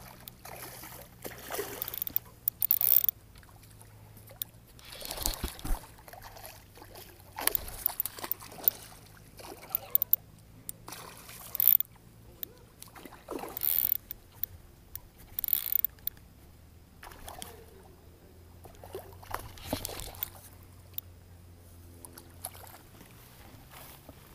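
Irregular splashing and sloshing as a hooked peacock bass thrashes at the surface on a fly line, with scuffs and handling noise, over a faint low steady hum.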